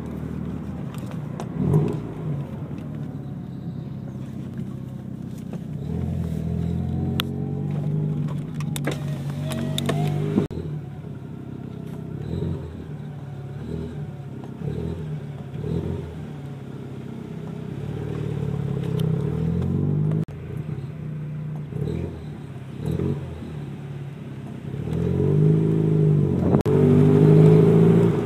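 Car engine idling and revved in short blips, then held higher and louder near the end. The owner describes a chirping, bell-like squeal ("kyuru-kyuru") from the underside of the car that appears at low speed after a spell of driving and comes out clearly when the engine is revved.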